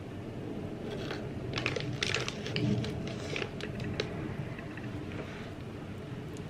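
Typing on an Apple computer keyboard: a quick flurry of key clicks about one to four seconds in, then a few scattered keystrokes, over a steady low background noise.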